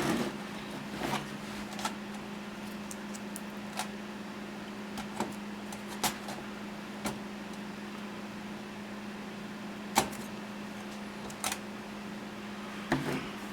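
Scattered light clicks and knocks of hands handling the metal radio mounting plate and its small parts in a van's dash, with one sharper knock about ten seconds in. A steady low hum runs underneath.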